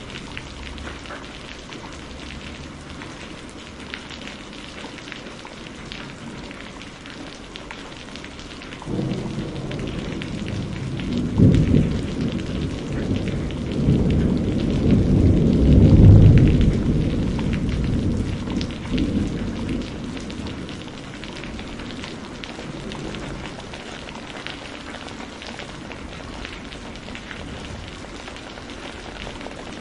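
Steady rain streaming off a tiled roof, with a long roll of thunder. The thunder starts about a third of the way in, swells to its loudest near the middle and dies away over about ten seconds.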